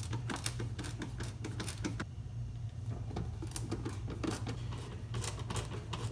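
Hand screwdriver driving screws into the plastic back housing of a Honda Accord headlight: quick runs of clicks and scrapes, pausing briefly about two seconds in and then resuming.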